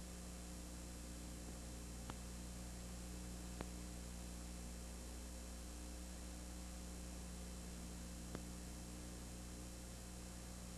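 Steady electrical mains hum under tape hiss, with three faint clicks about two, three and a half and eight seconds in; no sound from the game itself, only the noise floor of an old videotape transfer.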